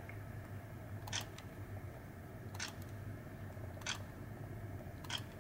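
Sony RX10 camera shutter firing four times, about a second and a half apart, each a soft, very quiet click.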